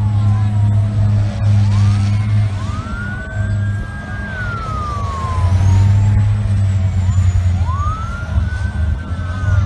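Airport crash-rescue fire truck siren wailing, rising, holding and falling slowly in cycles of about five seconds, over a steady low rumble.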